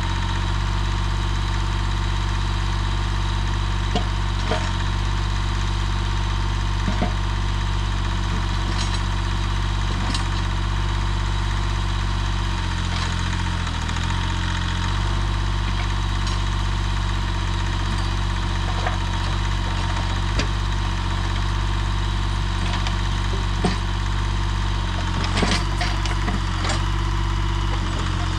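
Yanmar YB25 mini excavator's diesel engine running steadily as it digs, its pitch sagging briefly under hydraulic load about halfway through. Scattered short clanks and scrapes of the bucket working dirt and stones.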